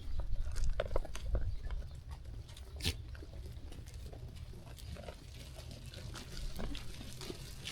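Sheep grazing and moving about at close range: short rustles, clicks and snuffles, with a sharper click about three seconds in, over a steady low rumble.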